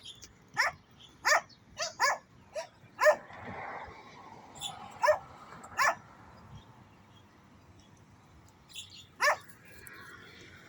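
Dog barking in short, sharp barks: a quick run of about six in the first three seconds, two more a few seconds later, and a last one near the end.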